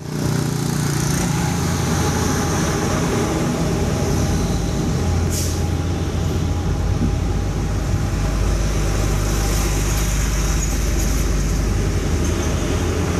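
Road traffic with heavy trucks passing: a steady low engine rumble throughout, with one short hiss about five seconds in.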